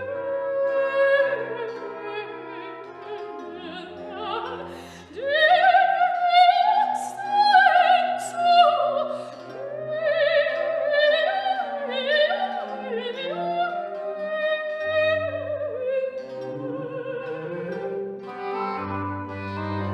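Orchestral classical music with bowed strings and an operatic singing voice with vibrato, louder in the middle.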